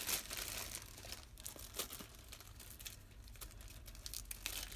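Small clear plastic bag crinkling as it is handled and opened, loudest in the first moment, then softer rustling with a few sharp crackles.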